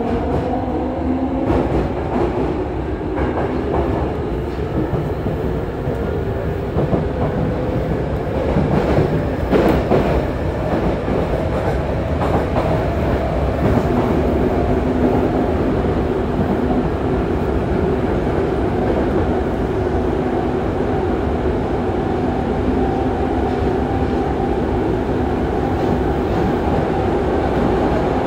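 Yokohama Blue Line 3000A subway car running on its Mitsubishi GTO-VVVF drive, heard from inside the car. The inverter and traction motors whine with several tones rising in pitch as the train gathers speed, then hold nearly steady in the second half. A few knocks from the wheels come around the middle.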